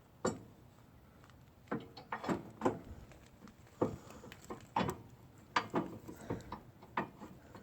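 Irregular metal clicks and knocks, about a dozen, as a pin is worked into place by hand to hold a lawn tractor's hitch lift bar.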